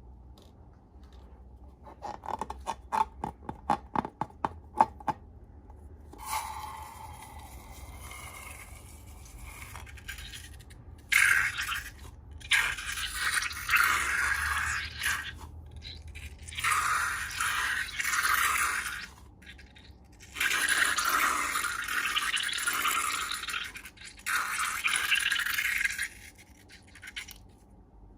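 Slime-making handling sounds: a quick run of sharp clicks, then a series of separate scraping, hissing strokes, each lasting one to three seconds.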